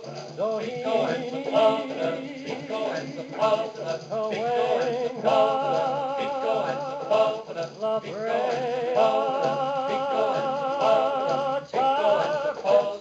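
A 1947 big-band novelty record played over the radio: voices singing over the orchestra, holding long notes twice in the middle.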